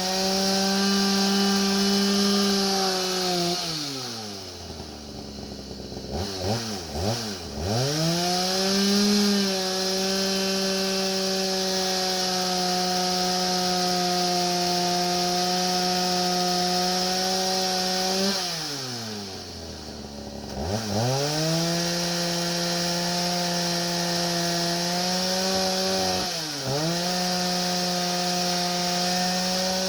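A 4900 chainsaw running on a homemade chainsaw mill, ripping through white oak at steady high revs. Its engine speed falls sharply to a low speed and picks back up twice, around 4 and 19 seconds in, with quick short dips near the end.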